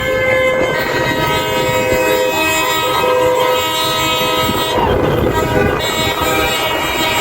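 Several vehicle horns of different pitches honking at once, with long held blasts overlapping over passing traffic. The drivers are honking in reply to a roadside 'honk if' protest sign.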